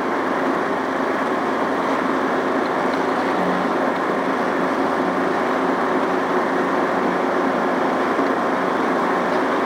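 Riding lawn mower running steadily while mowing, its engine and spinning cutting blades making an even drone.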